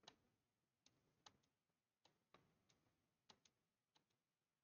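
Near silence with about eight faint, irregularly spaced computer mouse clicks.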